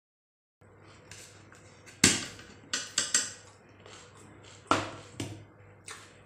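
A small stainless steel bowl clinking and knocking against a dinner plate as chicken keema is tipped out of it: about seven sharp knocks with a short ringing tail, the loudest about two seconds in.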